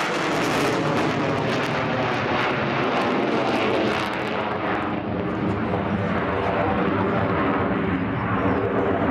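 Eurofighter Typhoon FGR4's twin Eurojet EJ200 turbofans running in afterburner: a steady jet roar with a ragged crackle on top. About five seconds in, the crackle and highest hiss fade while the lower roar carries on.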